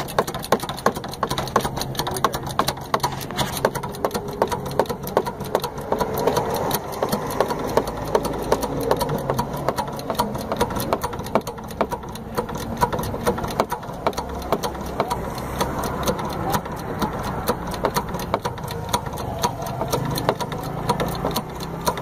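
Hydraulic bottle jack being pumped by hand to lift a car, giving a steady run of rhythmic mechanical clicks and knocks over a low hum.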